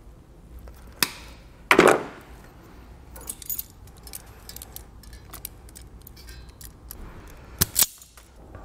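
Hand tools clicking and clattering while a crimping tool is worked onto a wire's butt connector to fit an inline fuse holder: a loud clatter about two seconds in, a few light clicks, and a sharp double click near the end.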